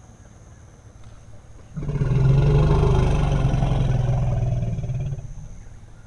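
Asian elephant giving a loud, low roar, starting suddenly a couple of seconds in, holding for about three and a half seconds and then fading out. A steady high insect drone runs underneath.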